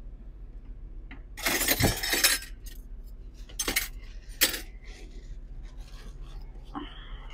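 Glass and dishes clinking and clattering, with a louder rattling clatter about one and a half seconds in and a few sharp single clinks after it.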